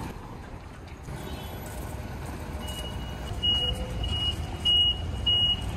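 Road traffic rumbling, with an electronic warning beeper starting about two and a half seconds in: a single high tone that repeats roughly every 0.6 seconds.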